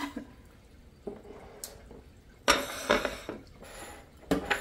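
Drink sipped from an aluminium can, with liquid sounds, then a short knock as the can is set down on the countertop near the end.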